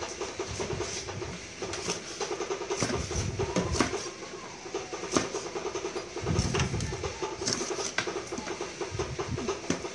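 Meat cleaver chopping through a fish onto a wooden chopping block: several sharp knocks at irregular intervals. A steady mechanical drone runs underneath.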